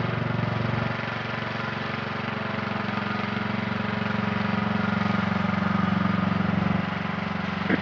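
Riding lawn mower's small engine running steadily as it drives along, a constant low drone that shifts slightly about a second in and again near the end.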